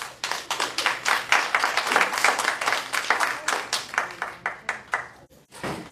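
Audience clapping together: the applause builds quickly, holds, then thins out to a few scattered claps near the end.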